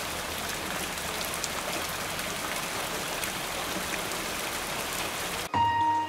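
Steady rain falling, with scattered sharp drop ticks. It cuts off suddenly about five and a half seconds in, and soft music with long held notes begins.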